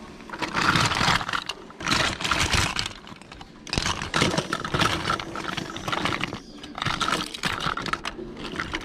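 Small hard plastic toys and parts clattering against each other as hands rummage and sift through a loose pile of them, in several bursts of rapid clicking with short pauses between.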